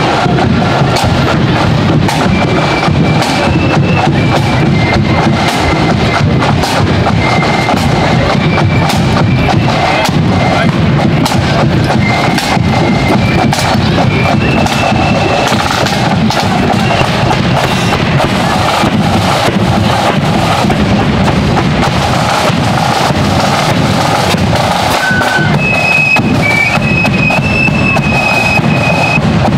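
Marching flute band playing: high flutes carry the tune in short held notes over fast, dense snare-drum rolls and a bass drum beat.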